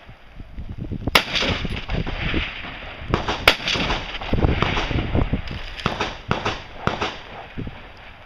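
Rifle shots fired one at a time at a steady pace: sharp cracks about a second in and twice around three seconds in, then several weaker reports further on.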